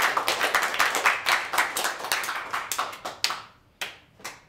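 A small audience of about eight people applauding with dense, quick hand claps that thin out about three seconds in, leaving a few last single claps.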